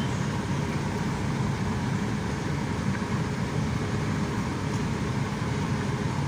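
Steady engine and tyre noise of a car driving on an asphalt road, heard from inside the cabin.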